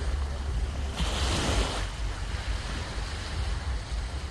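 Surf washing onto a beach, with wind rumbling on the microphone; a louder rush of surf comes about a second in and fades within a second.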